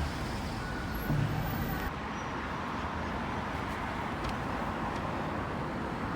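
Steady road traffic noise, a continuous rumble and hiss of vehicles.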